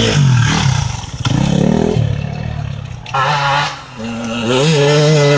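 Enduro dirt bike engine revving as the bike rides past, its pitch rising and falling several times.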